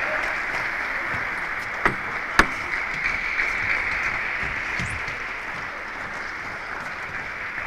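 Arena crowd applause and chatter, a steady hiss that fades slowly, with two sharp clicks about two seconds in.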